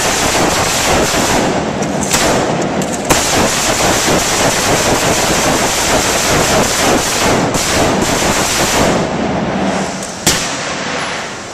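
Rapid, overlapping gunfire from several AR-15 carbines shooting at once, one shot running into the next, with a single loud shot standing out about ten seconds in.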